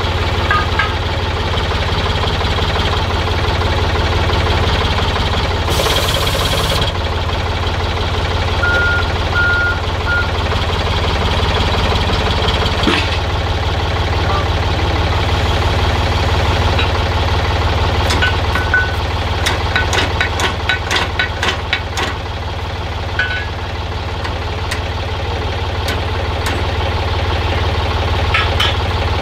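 Forklift engine idling steadily, with a short hiss about six seconds in and a quick run of metallic clinks about two-thirds through as lifting chains are hooked onto a railcar wheelset.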